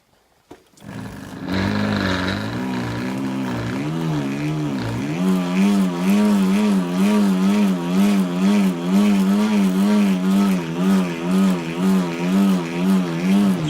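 A bicycle wheel and drivetrain being spun by pedalling while the wheel sensor of a wired bike computer is tested. A steady hum builds up about a second in, and its pitch wavers evenly a little more than once a second, rising and falling with each pedal stroke.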